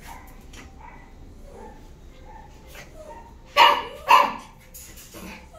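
A dog barking twice, two sharp barks about half a second apart, a little past the middle.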